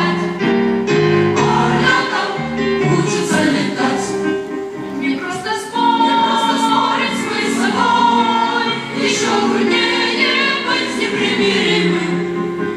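Boys' and youths' choir singing a song in several parts, with many voices sustained together.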